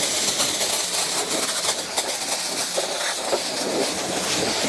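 Pressure washer gun spraying a high-pressure water jet against a car's front fender and wheel: a steady hissing rush with irregular spatter as the water strikes the panel.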